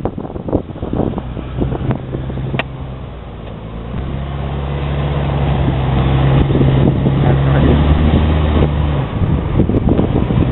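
Jeep Cherokee's engine working under load as it crawls up a rock ledge: a steady engine note that grows louder about four seconds in and dips briefly near the end. Wind buffets the microphone during the first few seconds.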